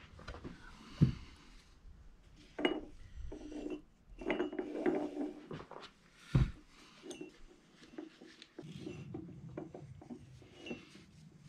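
Hand-handling of a hinged plywood motor mount and string: rustling, light clinks and wooden knocks, with two sharp knocks about a second in and a little past halfway.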